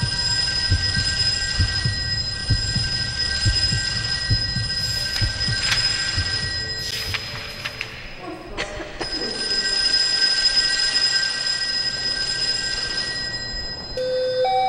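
Several steady high electronic tones sound together over an irregular low rumble with scattered knocks. The tones break off briefly about halfway through, then return. Near the end, a stepped two-note chime begins.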